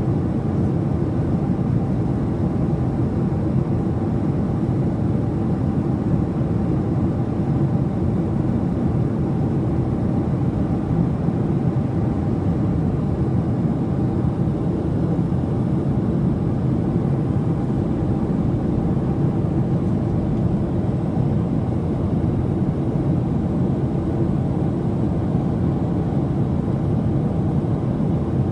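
Airliner cabin noise in cruise flight: a steady low rumble of engines and rushing air, heard from inside the cabin.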